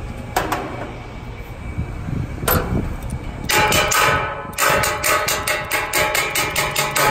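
Adjustable wrench striking the steel hub of a condenser fan blade seized on its rusted motor shaft, to knock the hub down and break it free. Two single metal clanks, then from about halfway a rapid run of ringing metal strikes, about four a second.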